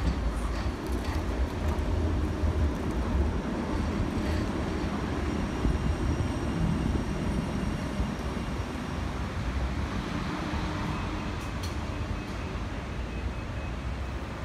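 Class 399 tram-train passing slowly on street track, its wheels and running gear giving a steady low rumble, with a few faint clicks.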